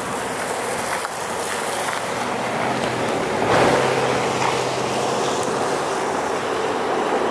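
Road traffic: a passing vehicle's engine hum and tyre noise, swelling about three and a half seconds in and then easing.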